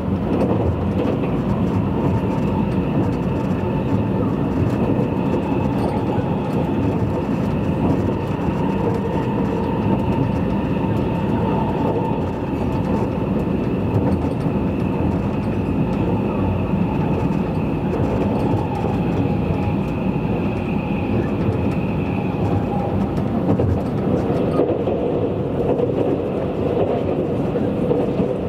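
Tobu 100 series Spacia limited express train running at speed, heard from inside the passenger car: a steady rumble of wheels on the rails with a faint steady whine.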